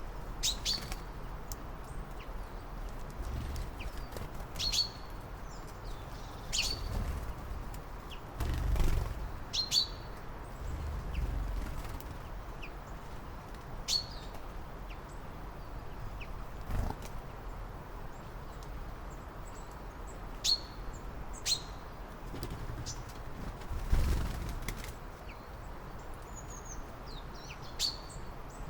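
Songbirds giving short, sharp high chirps, singly or in pairs every few seconds, over a steady low background rumble. A louder low whoosh swells up briefly about nine seconds in and again near 24 seconds.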